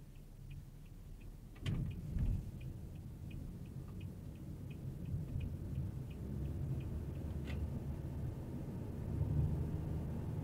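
Car turn-signal indicator ticking about three times a second over low road and engine rumble. Two sharp thumps come near two seconds in, the ticking stops about seven seconds in, and the rumble grows louder towards the end.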